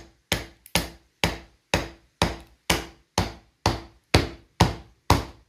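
Rubber mallet striking the spine of a Mora Garberg knife, batoning the blade down through a split of pine. There are about a dozen evenly paced blows, roughly two a second, each a sharp knock that dies away quickly.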